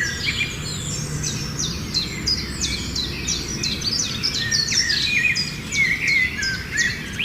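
Several birds chirping together: a dense run of quick high notes that each sweep downward, over lower warbling calls, with a faint steady background hum.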